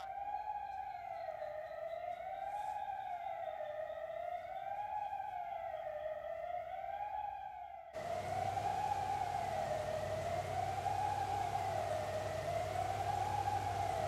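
Buford Dam's water-release warning siren, a wailing tone rising and falling about every two seconds, signalling the start of a release from the dam. About eight seconds in, a steady rushing noise from the churning river joins underneath it.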